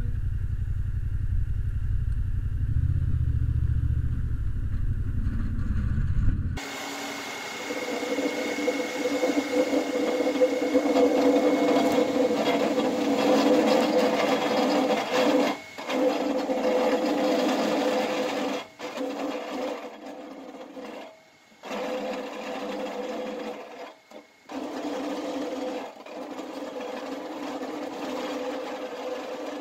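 A steady low rumble of vehicle engine and wind for about six seconds. Then the Lark Streamliner's aluminium training wheels roll on asphalt with a really loud, steady grinding rattle. This drops out briefly several times in the second half, whenever the streamliner balances on its main wheels with the training wheels off the ground.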